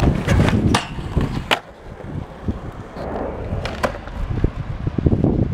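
Skateboard wheels rolling on concrete, with several sharp clacks of the board striking the ground and ledges.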